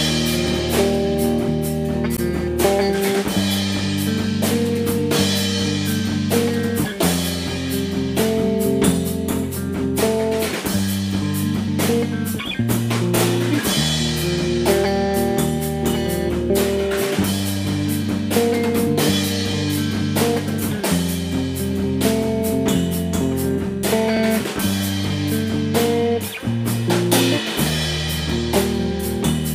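Soundtrack music with guitar, a bass line and a drum kit keeping a steady beat.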